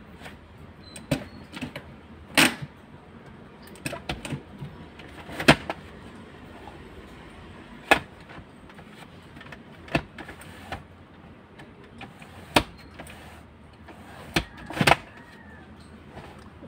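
Universal console armrest being handled in a car: a dozen or so sharp, irregular plastic clicks and knocks, one every second or two.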